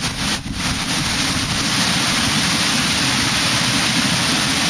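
Heavy tropical-storm rain pouring steadily onto trees and foliage, a dense hiss that dips briefly about half a second in.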